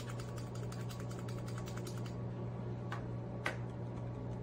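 Rapid run of light, evenly spaced clicks as the screwdriver bit is worked in a plastic bit magnetizer, stopping about two seconds in, followed by a few single sharp clicks as the tool is handled.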